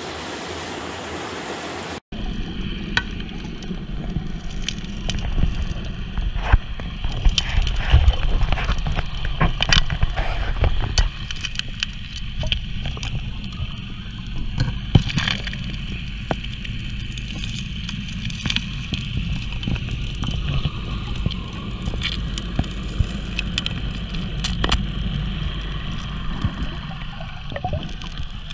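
Underwater sound of a 4-inch Keene gold dredge working bedrock cracks with its water-blaster attachment: a steady low rumble, peppered with many sharp clicks and knocks of gravel and stones knocking against rock and the suction nozzle. The first two seconds, before the sound changes abruptly, are stream water heard above the surface.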